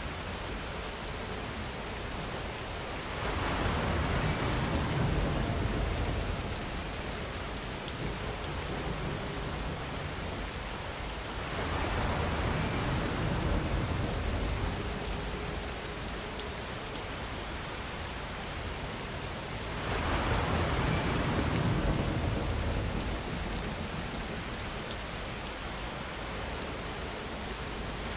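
Steady heavy rain hiss. Three times, about eight seconds apart, a long swell of low rumble rises and fades over about four seconds each.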